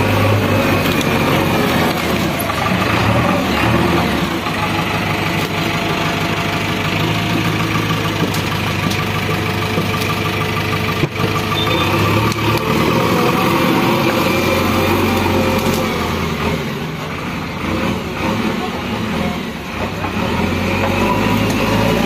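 JCB backhoe loader's diesel engine running while the front loader bucket works loose earth. The engine note drops for a few seconds about three-quarters of the way through, then picks back up.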